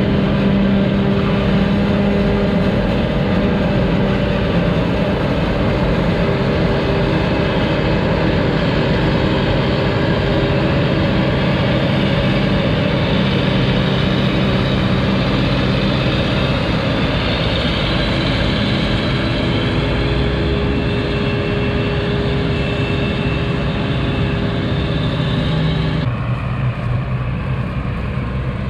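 Heavy diesel farm machinery at a maize silage harvest, a forage harvester and tractors, running steadily under load. The sound changes abruptly near the end, its higher part dropping away.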